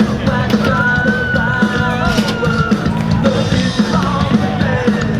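Rock music with a singer over a steady drum beat.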